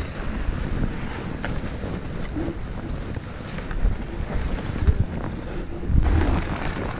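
Footsteps breaking through crusted snow, with wind buffeting the microphone.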